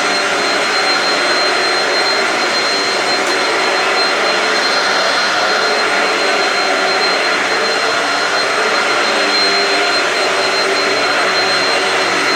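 Shark Rocket stick vacuum with DuoClean floor head running steadily over carpet: a continuous rush of suction airflow with a steady high-pitched motor whine.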